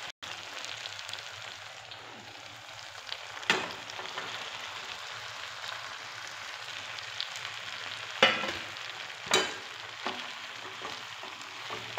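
Vegetables and Schezwan chutney sizzling in a hot steel wok as cooked rice is tipped in and mixed. Sharp metal clanks of utensils against the wok come once about a third of the way in and twice close together later on.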